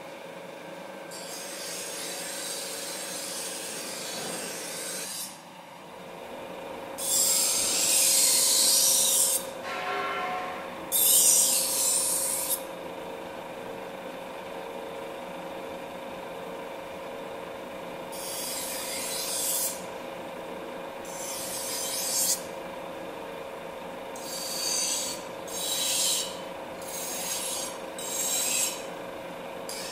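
Steel knife blade ground against a water-fed rotating grinding wheel: a rasping hiss with each pass, over the steady hum of the machine. The passes come as separate strokes of one to three seconds, quicker and shorter near the end.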